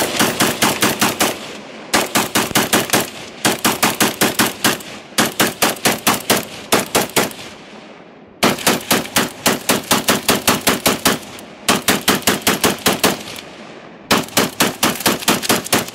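Semi-automatic Yugoslavian AK-variant short-barreled rifle fed from a 100-round RPK drum, fired as fast as the trigger can be pulled: strings of about seven shots a second, broken by short pauses, emptying the 60 rounds loaded.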